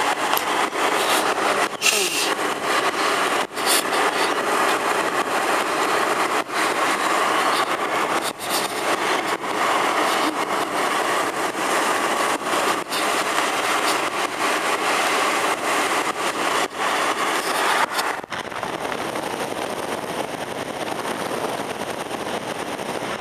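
Wind rushing and buffeting over the microphone of a camera held out of a moving car's window, over the car's road noise. The rush eases somewhat near the end.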